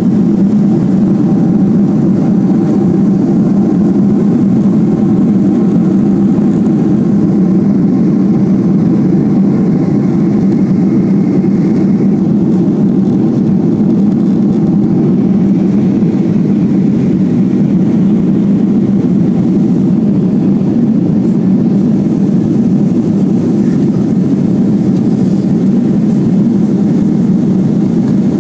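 Jet airliner's engines and airflow heard inside the passenger cabin during the climb after takeoff: a loud, steady, low drone.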